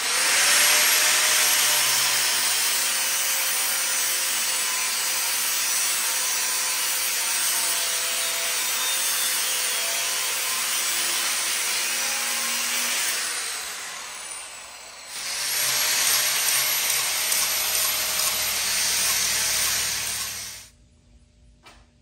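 Handheld power saw cutting through half-inch steel round bar clamped in a vise, running steadily for about thirteen seconds, easing off briefly, then cutting again for about five seconds before stopping abruptly.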